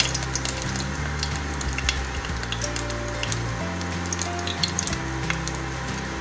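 Aloo paratha shallow-frying in hot oil in a wok, sizzling with a steady crackle of small pops.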